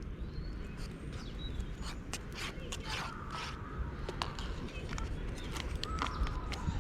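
Metal spoon stirring in a small metal camping pot, scraping and tapping against the pot wall to crush lumps of seafood soup powder into the cooking water: a string of sharp clicks and several short squeaky scrapes.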